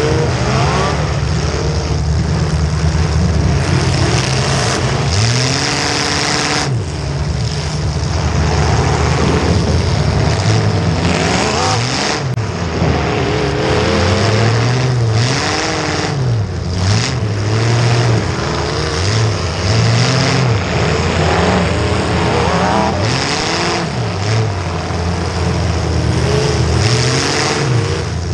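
Demolition derby car engines revving up and dropping back over and over, several engines at once.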